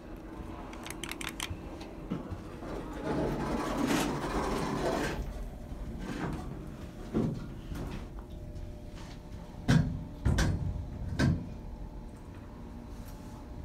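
Inside an Otis hydraulic elevator car: a few quick clicks from the door buttons, then a few seconds of sliding noise from the doors, and three loud thumps near the end.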